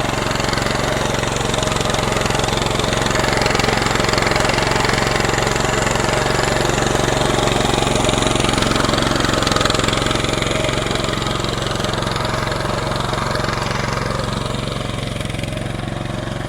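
Salyut-100 walk-behind tractor's single-cylinder petrol engine running steadily, growing slightly quieter near the end.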